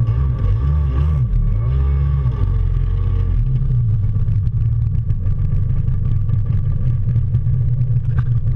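Wind and rushing water buffeting a board-mounted action camera as the board skims fast across the lake: a loud, fluttering low rumble with a thin steady whine above it.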